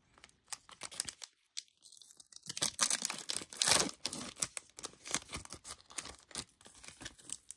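Trading card pack wrapper being torn open and crinkled by hand, in irregular crackling rips. There is a short lull about a second in, then more tearing and crumpling.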